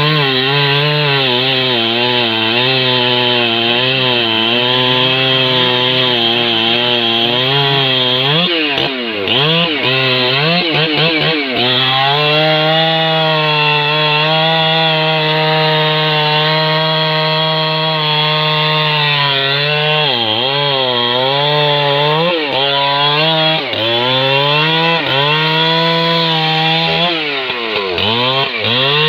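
Husqvarna 3120 XP two-stroke chainsaw cutting through a thick rain tree (trembesi) log at full throttle. The engine note holds steady under load, then dips and climbs back several times as the chain bites and eases in the cut.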